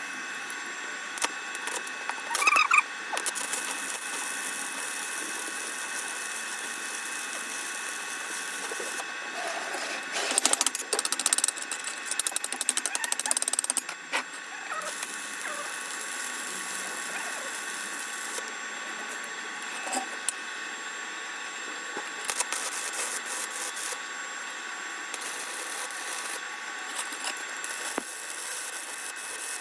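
Construction-site work sounds: a steady machine hum with scattered tool clicks and knocks, and a few louder bursts of clatter about ten to fourteen seconds in.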